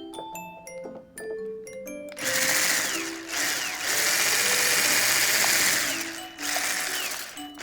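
Electric hand mixer running in a bowl, starting about two seconds in and going in three stretches with brief pauses, over light marimba-like background music.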